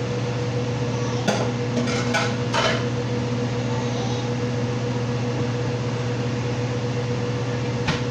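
A steady electrical hum from a kitchen appliance motor runs throughout. A sharp click comes about a second in, a few knocks follow over the next second or so, and another click comes near the end, as bottles and kitchen items are handled.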